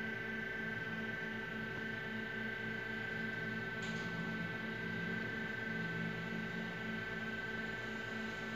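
Steady hum made of several steady tones, its lowest part pulsing unevenly, with one short click about four seconds in.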